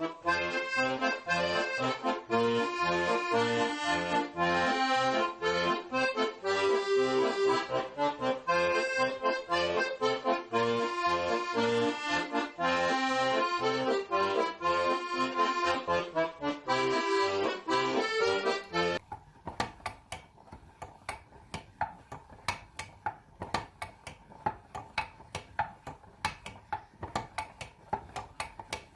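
Instrumental background music with a pulsing bass line, which stops abruptly about two-thirds of the way through. A quieter run of rapid, irregular clicks and light taps follows.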